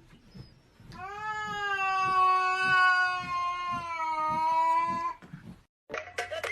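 A domestic cat gives one long, drawn-out meow of about four seconds, starting about a second in and holding a fairly steady pitch that sags slightly before it ends. Just before the end it cuts off abruptly and music begins.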